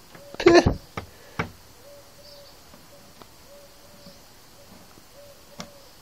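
A short voice-like cry with a falling pitch, then two light knocks as the figure is pushed into the small glass, then faint background with a few soft ticks.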